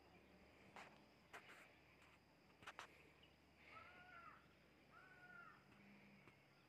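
Near silence, broken by two faint bird calls a little over a second apart, each a single note that rises and falls, and a few faint clicks.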